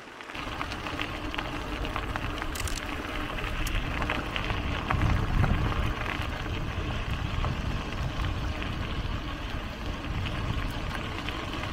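Riding noise from an e-bike on a field track: tyres rolling and wind rushing past, a steady rumbling hiss with scattered small clicks. It swells briefly about five seconds in.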